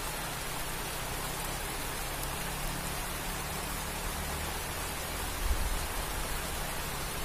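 Steady hiss of rain falling, with a few low rumbling bumps about five and a half seconds in.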